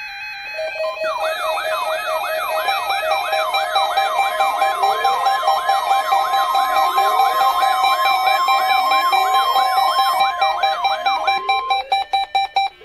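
NOAA Weather Radio warning alarm: a steady 1050 Hz alert tone held for about ten seconds, layered with a fast repeating rising siren-like yelp, about three a second, and other steady tones. In the last second it breaks into rapid pulses and cuts off.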